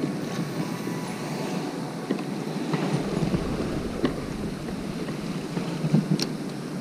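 Steady wind on the microphone and choppy water lapping against a plastic fishing kayak's hull, with a few short sharp knocks or clicks, the loudest about six seconds in.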